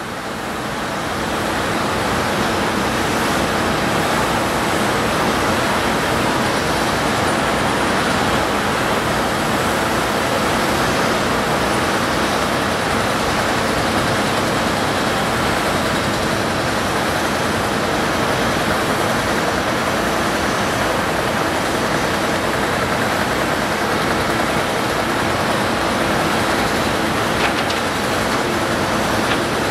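Komatsu PC50 mini excavator running steadily while digging, its diesel engine and hydraulics working without pause. A brief click sounds near the end.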